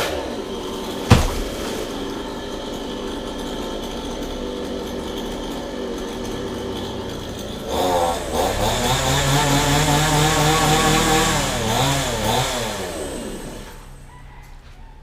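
Chainsaw dropping from high revs to idle, with a single sharp knock about a second in. About eight seconds in it is revved up again for several seconds, its pitch rising and falling, then it winds down and fades near the end.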